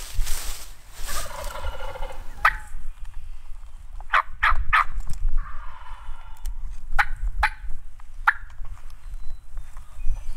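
Wild turkeys gobbling from the roost. There is a long rattling gobble about a second in and another around six seconds in, with a handful of short, sharp call notes between them.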